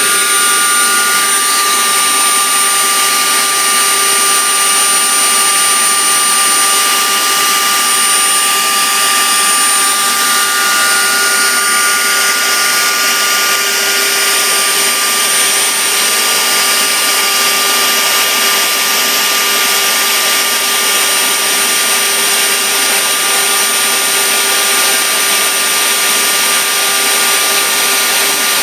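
A motor running steadily: an even rushing, whirring noise with several faint steady whining tones over it.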